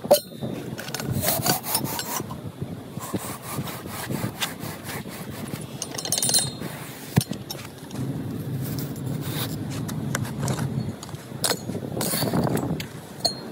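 Golf hole-changing tools working a putting green: scraping and crunching through turf and soil, with many sharp metal clicks and knocks.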